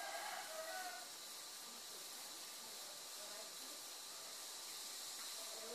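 Quiet room tone with a steady hiss. Faint, distant voices come in briefly at the start and again near the end.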